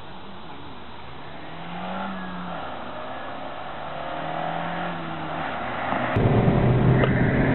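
A car's engine accelerating as it approaches, its note rising and falling twice. About six seconds in, it switches suddenly to much louder engine and road noise.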